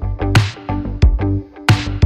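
Electronic background music with a steady beat of drum hits over a deep bass line and held synth notes.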